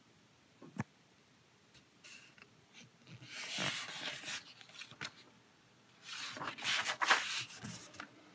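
Paper rustling in two bouts as the pages of a plastic model kit's instruction booklet are handled and turned, after a short sharp tap about a second in.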